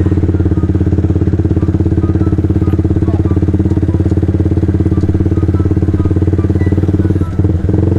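Sport motorcycle engine running steadily while riding at low speed, a fast even pulsing at constant pitch, with a brief dip in the sound near the end.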